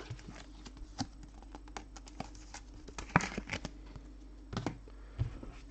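Topps Chrome trading cards being handled and shuffled through by hand, giving scattered small clicks and taps at irregular times, the loudest about three seconds in.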